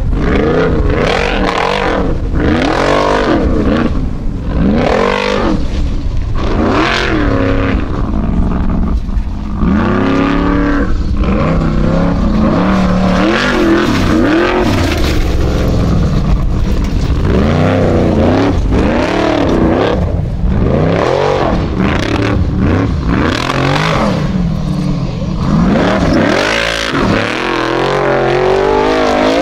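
Formula Offroad Unlimited-class buggy's engine revving hard, its pitch rising and falling again and again as the throttle is blipped and held on the steep dirt climbs and slides.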